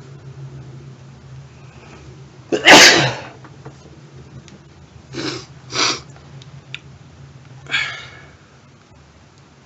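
A man's loud induced sneeze about two and a half seconds in, followed by three shorter, quieter bursts of breath.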